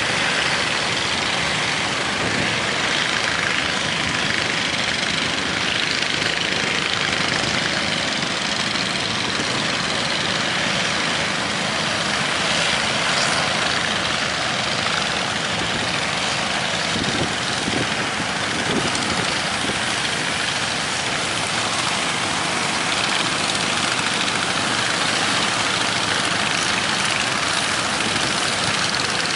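Fishing boat's engine running steadily under a constant rush of wind and sea noise.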